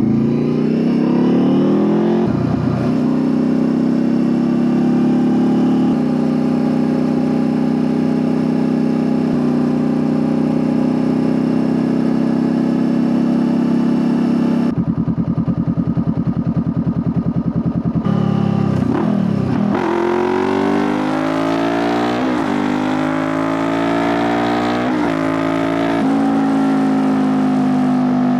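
Honda CBR500R's parallel-twin engine under way. It pulls up and shifts near the start, then holds a steady cruise. About halfway it drops for a few seconds to a slow, pulsing beat. It then accelerates again with a rising note through several quick gear changes before settling back to a steady run.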